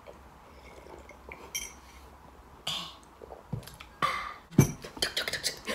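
Ceramic mugs and tableware clinking and knocking on a wooden table, with short sips from the mugs. A sharp knock about two-thirds of the way through is the loudest sound.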